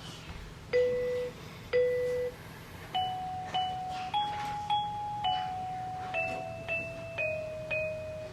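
Electronic baby toy playing a simple chime-like tune. Two single notes come first, then a run of about ten notes in repeated pairs that climbs a little and then steps down.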